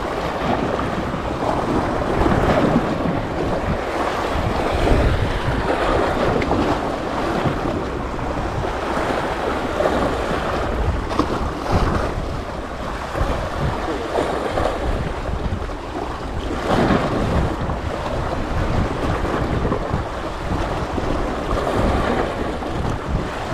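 Sea waves washing, with wind gusting on the microphone.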